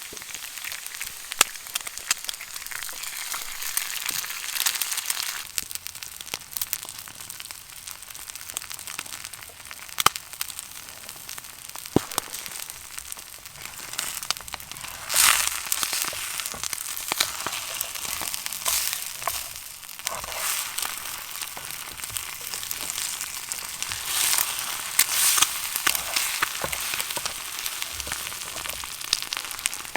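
Food frying in a pan over a campfire: a steady sizzle full of crackles, with a few sharp pops, swelling louder about halfway through and again near the end.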